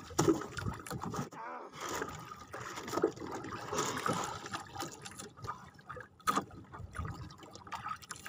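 Water trickling and lapping around a small outrigger boat, with a few scattered knocks as a freshly landed trevally is handled in the hull.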